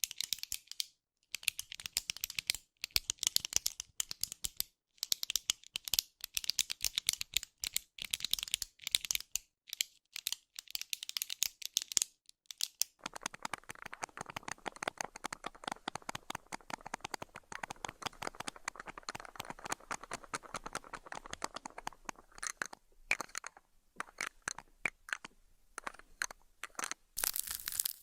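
Close-miked ASMR trigger sounds: rapid, dense crackling and clicking. The first twelve seconds come in short bright clusters with brief gaps. The middle stretch is a lower, continuous crackle, which thins to scattered clicks before a bright crinkly burst near the end.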